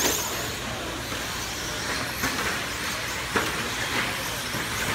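Radio-controlled short-course trucks racing: a steady wash of electric motor whine and tyre noise, with a high whine as one truck passes close at the start. There are a couple of sharp clacks, about two seconds in and again about a second later.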